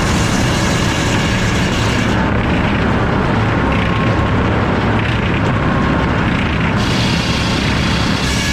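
Circular sawmill headsaw with an F-pattern inserted-tooth blade running, loud and steady, with its machinery drone underneath. The bright upper hiss fades for about four seconds midway, then returns.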